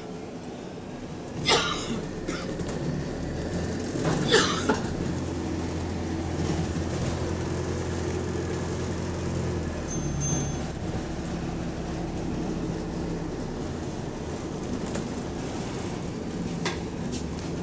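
Bus engine running steadily as the double-decker drives, with a deep drone whose pitch shifts about ten seconds in and a part of the bus vibrating along with the engine. Two short, sharp noises cut in during the first five seconds.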